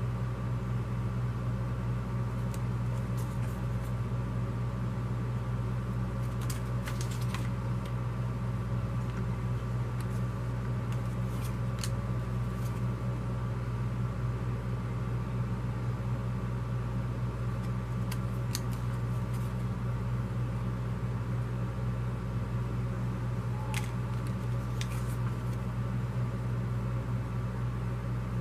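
Steady low machine hum, with a few faint brief rustles and taps as paper flyers are handled.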